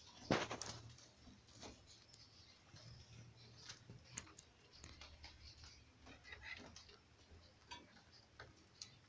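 Faint, irregular small clicks and rustles of young rabbits moving and nibbling in the straw bedding of a wire-and-wood hutch, with one louder knock right at the start.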